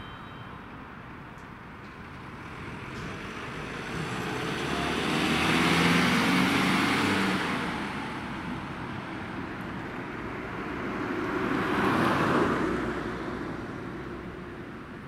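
A fire-brigade command van drives past on an emergency run, its engine and tyre noise swelling to a peak about six seconds in and then fading as it moves away. A second vehicle passes in the same way about twelve seconds in.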